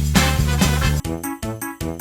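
Background music: a swing-style track with a steady beat and heavy bass, which cuts abruptly about a second in to a different bouncy tune of short, clipped notes.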